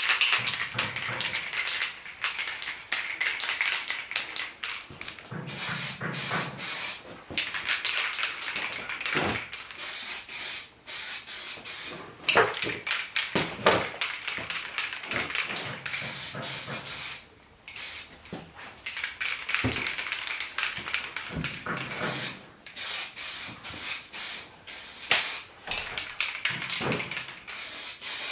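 Aerosol can of heat-resistant spray paint hissing in repeated passes of a few seconds each, with short breaks between them, as engine covers are given a coat.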